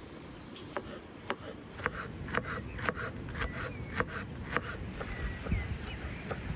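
A knife chopping on a wooden cutting board with a quick, irregular run of sharp strikes, thickest in the middle, as ingredients for a filling are cut, with faint bird chirps behind.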